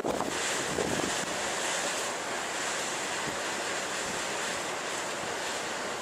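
Storm-driven surf breaking on a rough sea together with strong wind, a steady rush of noise, with wind buffeting the microphone.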